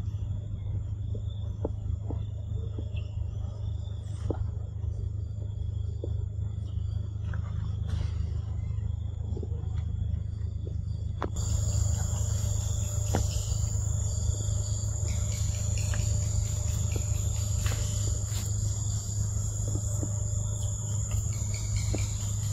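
Forest ambience: insects droning in steady high-pitched tones over a constant low rumble, with scattered faint clicks. The insect drone grows louder about halfway through.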